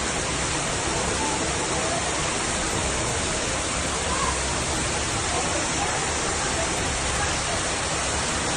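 Water rushing steadily with no letup, as floodwater runs in heavy rain.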